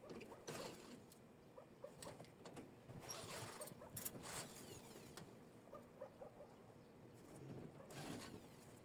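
Faint, intermittent scratching and light clicks, with a sharper click about four seconds in.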